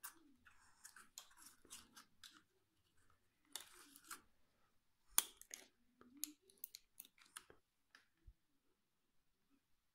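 Hard plastic clicking and scraping as a push-on landing foot is worked onto the underside of a plastic quadcopter body, with one sharp click a little after five seconds in. The handling stops about two seconds before the end.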